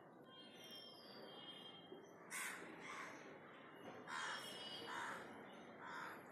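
A bird calling outdoors in short, coarse calls, five of them starting about two seconds in. Another bird gives a thin, falling whistle in the first second.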